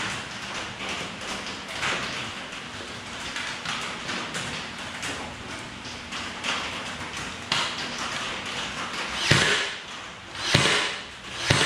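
Steady rain noise with small knocks of wooden boards being handled, then three sharp shots about a second apart near the end from a battery-powered Ryobi brad nailer driving brads into the corner of a 1x4 frame.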